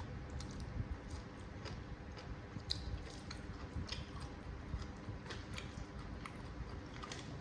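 A person chewing a mouthful of food close to the microphone, with soft wet smacks and small clicks of the mouth, the chewing of saucy noodles and soft dumplings.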